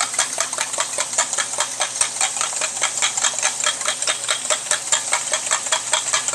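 Eggs being beaten by hand in a glass jug: a quick, steady clicking of about five strokes a second. Underneath is the steady hiss of a ribeye steak searing in a pan.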